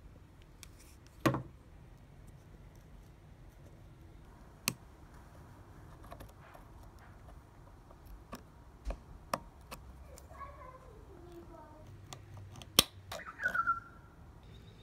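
Metal parts of a Stanley Yankee ratchet screwdriver clicking and tapping against each other and the wooden bench as it is taken apart, with a flat screwdriver blade working in the slot of the chrome sleeve. Scattered sharp clicks, the loudest a cluster near the end, and a short scraping squeak falling in pitch about ten seconds in.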